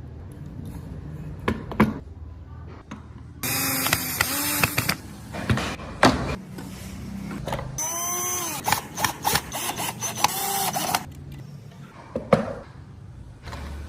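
Small handheld power tool cutting wood in two bursts of a few seconds each, its motor pitch rising and dipping under load. Sharp knocks and taps come in between.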